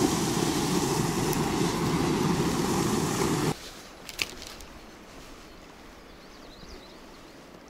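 Steady rush of water spilling over a small concrete weir. About three and a half seconds in it cuts off suddenly, leaving a much quieter flow of river water with one short click.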